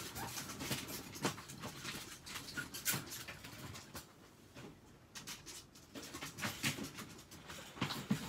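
Irregular rustling, crinkling and light clicks of a plastic tarp underfoot and being handled as a person steps and crouches on it, with a quieter pause midway.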